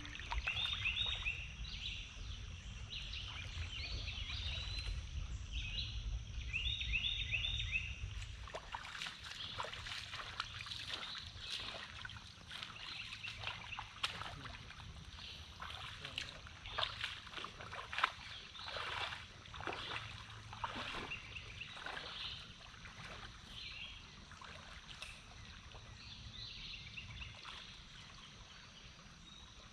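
Shallow river water splashing and trickling in irregular bursts over a gravel riffle, thinning out toward the end. In the first several seconds, before the splashing starts, birds chirp in short repeated phrases over a low rumble.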